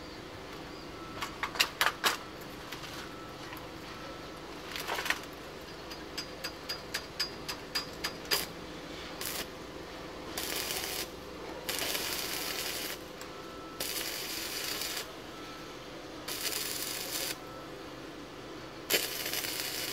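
Stick (arc) welding on a steel exhaust pipe: a run of sharp clicks and taps as the electrode is struck against the work, then about five crackling sizzles of roughly a second each as short tack welds are laid.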